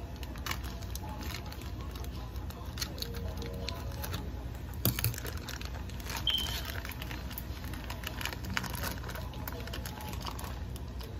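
Clear plastic wrapping crinkling and crackling as it is pulled and torn off frozen fish, in scattered small clicks with a sharper crackle about five seconds in and again a little after six.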